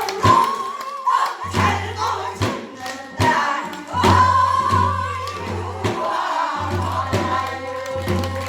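Several voices singing Namdo folk song (namdo sori) together in a wavering, sustained style, with sharp percussive strokes beating through the singing.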